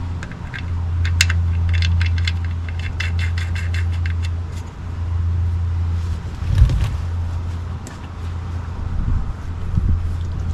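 Small metallic clicks and clinks as the oil drain plug is threaded back into the oil pan of a 2010 Honda Fit, over a steady low hum. The clicks come quickly for a few seconds, then only now and then.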